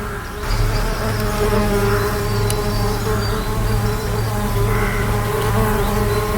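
Bees buzzing: a steady, low pitched hum that swells and eases slightly, after a brief dip right at the start.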